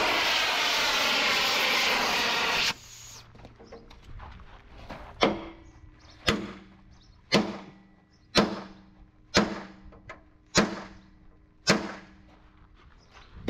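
A loud rushing noise cuts off sharply about two and a half seconds in. It is followed by seven hammer blows on a steel truck chassis rail, about one a second, each leaving a short metallic ring, as the heated rail is beaten straight.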